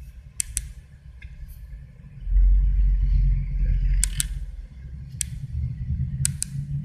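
Low rumble of a car rolling forward, heard from inside its cabin, starting about two seconds in. A few sharp clicks are heard over it.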